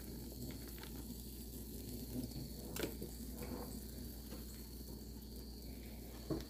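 Faint sizzle of tortillas, cheese and pork on a hot Blackstone griddle, under a steady high drone of night insects. A couple of light clicks, about three seconds in and again near the end.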